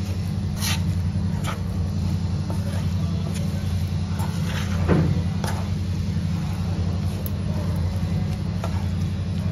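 A spoon stirring wilting fenugreek leaves in a metal kadai, with scattered scrapes and knocks against the pan, the loudest about five seconds in, over a steady low hum.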